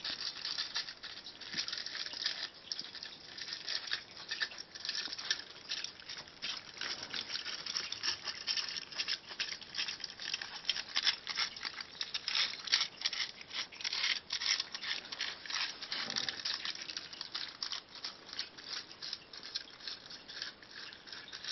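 Cats eating leftover roast vegetables off a sheet of aluminium foil: the foil crackles and crinkles continuously as they lick, chew and push at it, a dense run of small crisp clicks.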